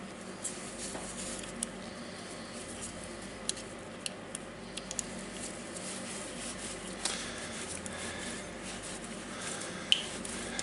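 Scattered small metallic clicks and taps of a ball bearing remover tool being worked on the worn armature ball bearing of a Makita DGA504 angle grinder, with a sharper ringing clink near the end.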